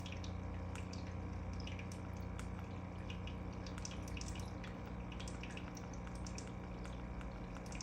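Water trickling and dripping in a running aquarium, many small irregular drips over a steady low hum.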